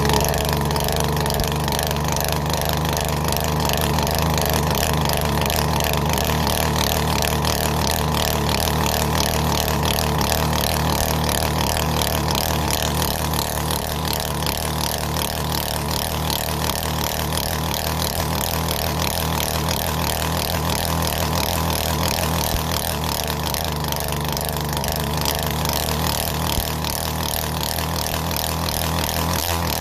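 Poulan Pro two-stroke chainsaw engine running steadily at high revs, its high-speed mixture screw turned out to make it spin faster.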